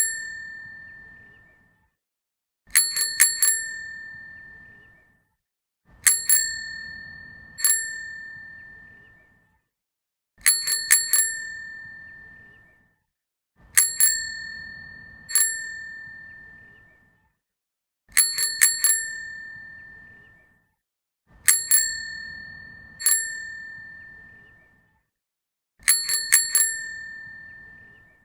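A bicycle bell rung over and over in bursts: three quick dings and then one more about a second later, each ringing out. The bursts repeat about every three and a half seconds with silence between them.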